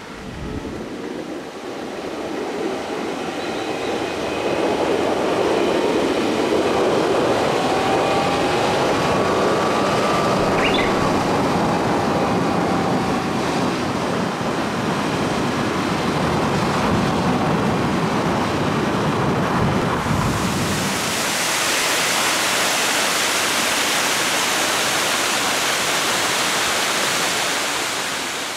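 Road noise of a car driving on a narrow paved forest road, a steady low rumble of engine and tyres. About twenty seconds in it gives way to a steady, even rushing hiss of falling water.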